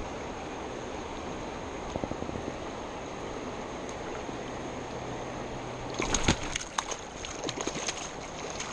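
Steady rush of a fast mountain river, with a cluster of sharp clicks and knocks about six seconds in.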